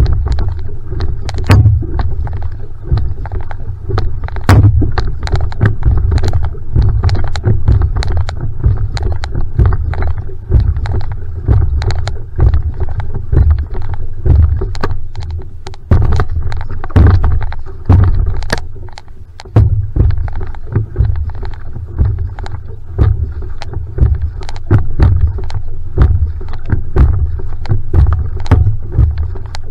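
Va'a outrigger canoe being paddled at a steady pace: the paddle catching and pulling through the water in a repeating rhythm, water running along the hull, and a heavy low rumble with frequent small splashy clicks.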